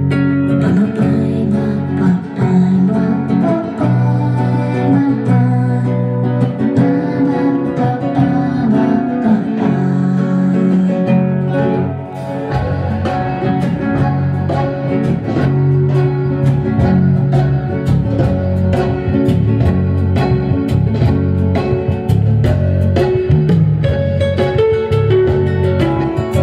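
Guitar-led music played back loud through large wooden-cabinet loudspeakers with Tesla 942 drivers, driven by a WE TA 7331 amplifier. About halfway through a deep bass line and steady percussion come in.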